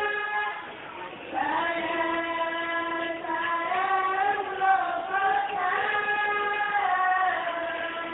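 A sholawat, an Islamic devotional song, sung in a young female voice, with long held notes that waver and bend in pitch and a short break about a second in.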